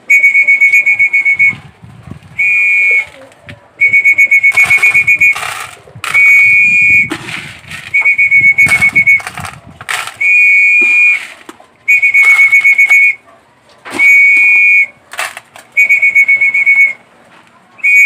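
A hand-blown whistle sounds in about nine trilling blasts of a second or so each, with short gaps between them: a pigeon fancier's feeding call to his young racing pigeons. Light knocks and rustling fill the gaps.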